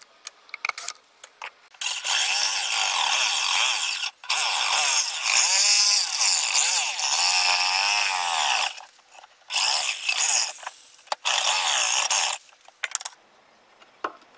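Corded jigsaw cutting a larger round driver hole in the top panel of a small subwoofer box, running in several stretches of a few seconds with short stops, its pitch wavering as the blade speed changes. A few light knocks come first as the saw is set in place.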